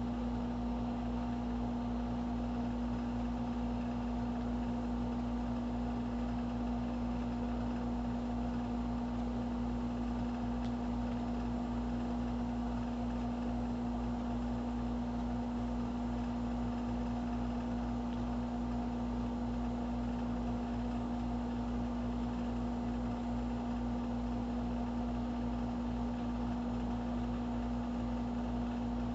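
A steady hum with one strong low tone and a low rumble beneath it, not changing over the whole stretch.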